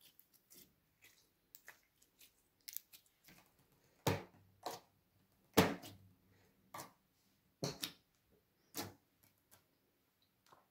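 Slime being kneaded and pressed flat with fingers on a tabletop: a series of short clicks and pops, the loudest a few seconds in.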